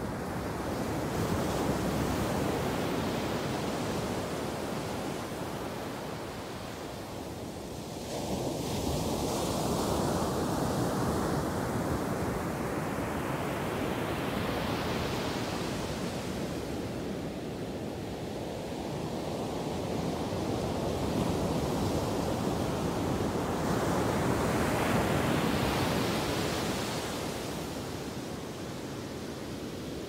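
Pacific Ocean surf breaking and washing up the beach: a steady rush that swells and fades several times as successive waves come in, one breaking sharply about eight seconds in.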